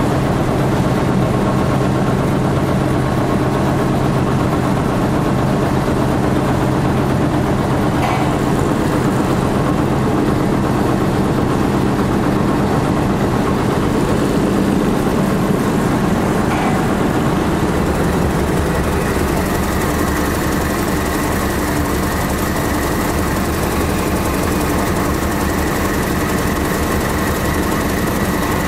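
Machinery of a PET staple-fibre nonwoven geotextile production line running: a loud, steady mechanical drone with several held tones. Its mix of tones changes about two-thirds of the way through.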